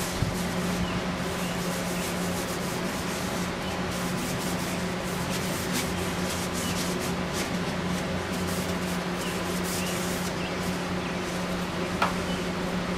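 A rag rubbing and buffing paste wax into a wooden lathe bed extension, a continuous scrubbing over a steady low hum.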